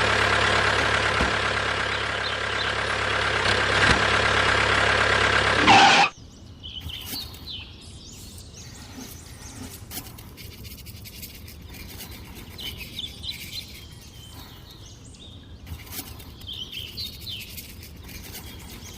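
A loud, steady engine noise cuts off abruptly about six seconds in. Faint bird chirps follow.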